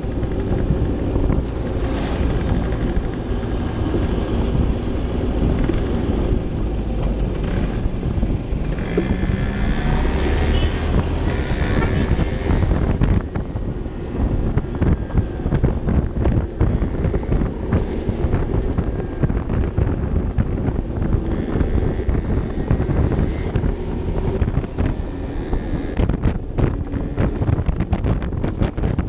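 Vespa LXV 150 scooter's single-cylinder engine running at cruising speed under heavy wind rumble on the microphone, the gusts buffeting harder near the end.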